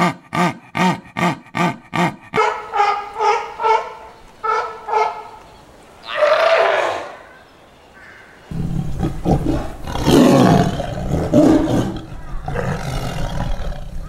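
A jaguar's sawing call: a run of rhythmic rasping grunts, about two and a half a second, which stops abruptly about two seconds in. Then sea lions barking in short pitched honks, with one louder, longer call falling in pitch, followed by rougher, louder sounds over a low rumble.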